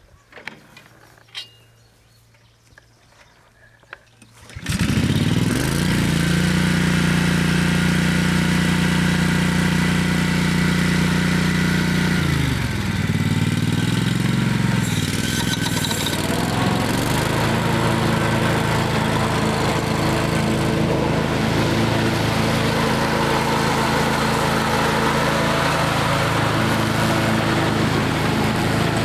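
Kawasaki FH500V V-twin engine of a Scag 52 Advantage zero-turn mower starting up about five seconds in and running steadily. About thirteen seconds in its speed dips and wavers for a few seconds, then settles into steady running at a new pitch.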